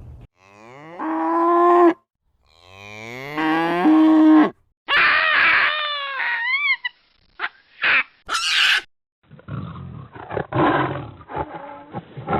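Two domestic cows mooing, one long moo each, both rising in pitch. Then a baboon gives a run of shrill, arching calls and sharp barks. From about nine and a half seconds in, a white tiger growls in rough, repeated growls.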